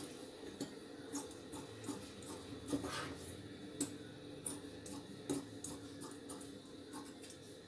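Tailoring scissors snipping through blouse fabric and the foam interfacing stitched to it: a run of short, faint cutting snips, about one or two a second.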